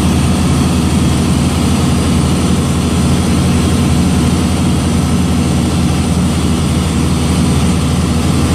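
Fishing boat's engine running steadily under way: a constant low drone with an even hiss over it.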